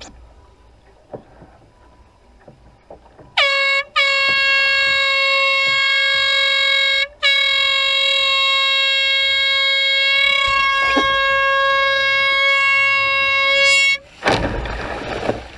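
An air horn sounding on one steady pitch: a short blast about three seconds in, then a long blast of about three seconds, a momentary break, and another long blast of nearly seven seconds. Just after it stops comes a short burst of rushing noise.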